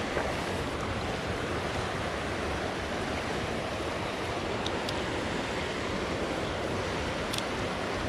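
Steady rushing of river water pouring over small falls, with two faint ticks in the second half.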